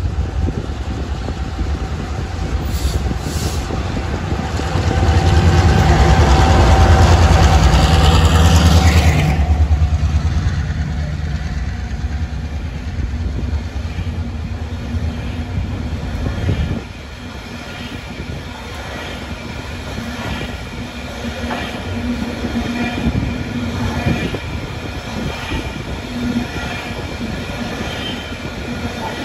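A loaded grain train hauled by two diesel-electric locomotives passes close by. The locomotives' engines are loudest about five to nine seconds in. After that the grain wagons roll past with a steady rolling rumble, light wheel squeal and clicks.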